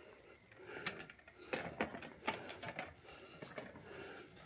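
Metal prayer wheels turning on their spindles, giving a run of irregular mechanical clicks and knocks, busiest in the first half.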